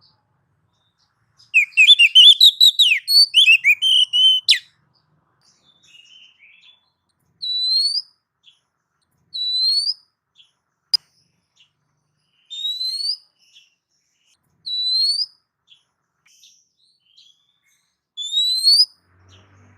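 Oriental magpie-robin (kacer) singing: a fast run of varied whistled notes, then a series of single upward-sliding whistles every two to three seconds. A single sharp click comes about halfway through.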